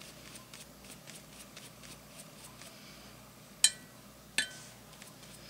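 Two sharp clinks about three-quarters of a second apart, each with a brief ring, from a paintbrush tapped against a glass water jar, over faint brush strokes on paper.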